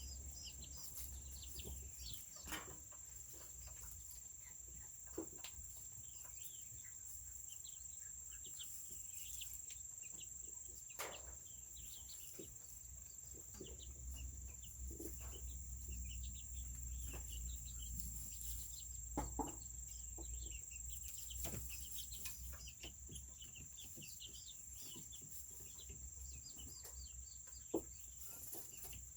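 Serama bantam chickens clucking and peeping softly in many short, quick calls, with a few sharp taps and a steady high-pitched whine underneath.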